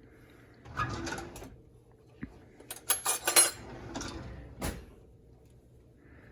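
Spoon scraping and knocking against a container and pot as sour cream is scooped into pasta: a scrape about a second in, a quick run of clinks around three seconds in, and one sharper knock a little later.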